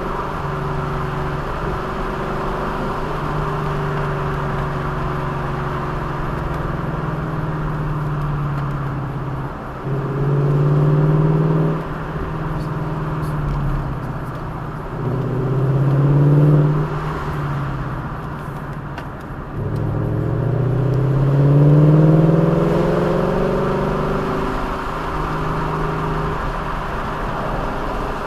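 A vehicle's engine under way over steady road noise, rising in pitch and loudness as it accelerates three times, about ten, fifteen and twenty seconds in, and easing off in between.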